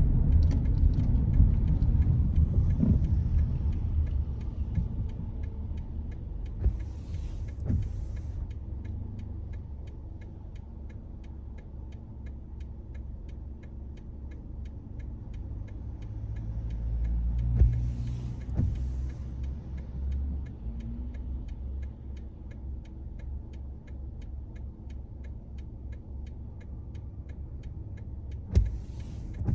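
Car interior on a wet road: low engine and tyre rumble, easing off over the first several seconds as the car slows. A short swishing sweep comes about every ten seconds, typical of windscreen wipers on intermittent in rain.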